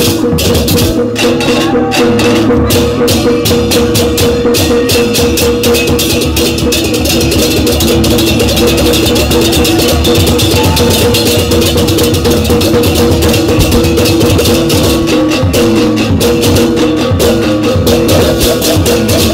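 Balinese baleganjur gamelan playing loudly: rapid, continuous clashing of ceng-ceng cymbals over steady ringing gong tones and drums.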